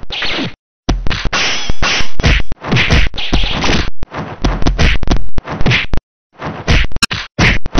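Fight sound effects: thwacking punch and kick hits and whooshes in quick succession, broken by a few brief silences.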